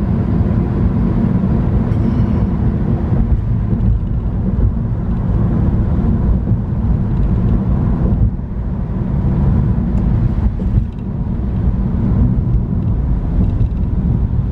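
Steady road and engine rumble of a car cruising on a freeway, heard from inside the cabin.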